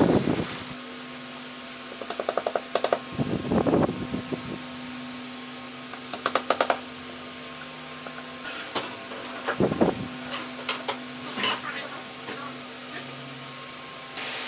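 Runs of quick, light taps and a few louder knocks from a hammer striking a steel tool held on the end of a pine board, over a steady low hum.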